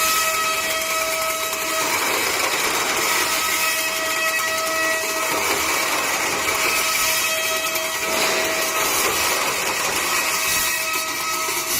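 Automatic burr-free cutting machine running, a steady mechanical hiss with a motor whine that fades in and out several times.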